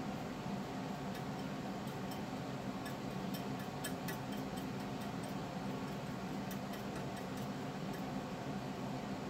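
Steady mechanical room hum, with faint, irregular ticks and scratches from a small painting tool working wet acrylic paint on a slate tile, thickest in the middle of the stretch.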